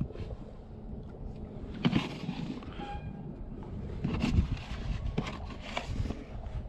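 Hands handling a plastic container over a plastic bin while picking out whitebait, giving a few light knocks and taps, over a steady low rumble of wind on the microphone.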